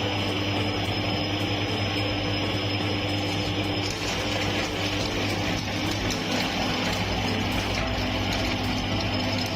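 Electric meat grinder running steadily with a constant motor hum, grinding coconut candy. The texture of the sound shifts slightly about four seconds in.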